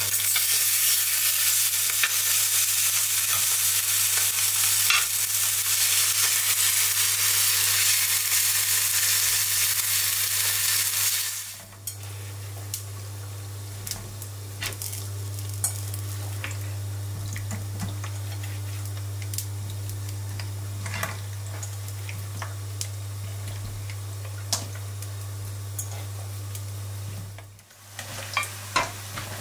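Food frying in hot oil: a loud, even sizzle that cuts off abruptly about eleven seconds in. It gives way to quieter frying with scattered pops and crackles over a steady low hum. A few clatters near the end as sliced mushrooms are tipped into the pan.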